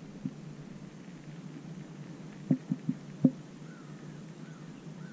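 Four quick, dull knocks close together about two and a half seconds in, over a faint steady low hum, with a few faint short chirps near the end.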